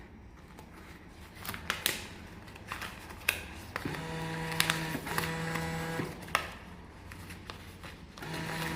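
Laundry card reload machine taking a bill: scattered clicks and a motor hum for about two seconds midway, starting again near the end.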